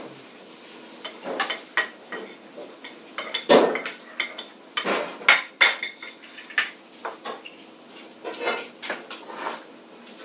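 Metal spoons and forks clinking and scraping against ceramic plates and bowls as several people eat, in irregular clinks with the loudest cluster around the middle.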